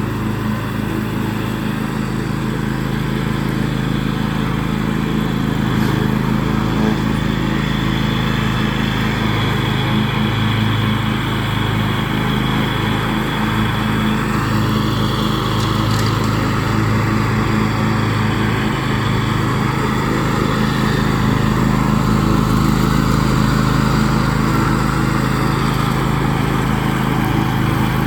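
John Deere X500 riding lawn tractor's engine running steadily while mowing.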